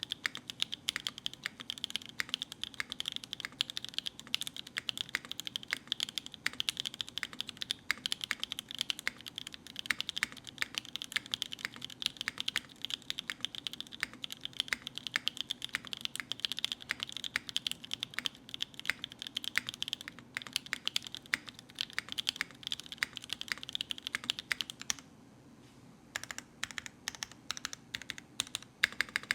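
Zoom65 V3 mechanical keyboard with Gateron Smoothies linear switches, a carbon fiber plate, O-ring mount and no foam, typed on quickly and continuously. Typing stops for about a second near the end, then resumes.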